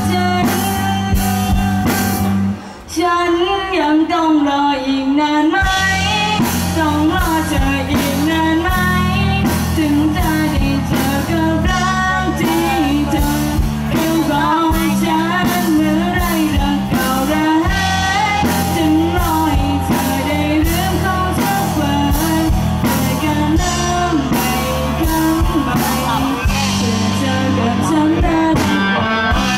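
Live rock band playing through a PA: a singer singing over electric guitars and a drum kit. The full band drops out briefly about three seconds in, leaving the voice over lighter backing, and comes back in a couple of seconds later.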